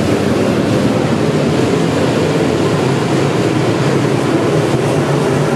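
A pack of dirt-track modified race cars running on the throttle together, their engines making a loud, steady roar that never lets up.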